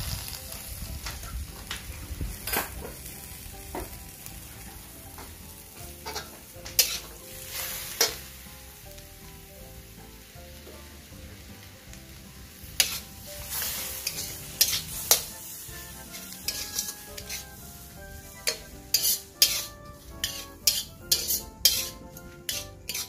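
Cabbage and greens sizzling in a stainless steel wok with a little chicken broth just added, while a metal spatula stirs and scrapes them and knocks against the wok. The spatula clanks come quicker, several a second, in the last few seconds.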